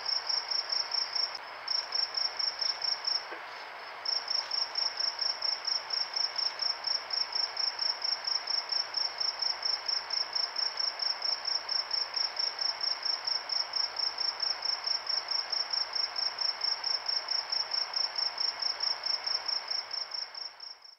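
Night insects chirping: a high-pitched chirp repeating steadily about four times a second, with two brief pauses in the first few seconds, over a steady hiss.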